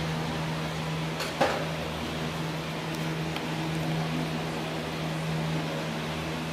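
Steady low machine hum, like a running shop fan, with one sharp click about a second and a half in and a couple of faint ticks later: hand tools working on the handlebar bolts.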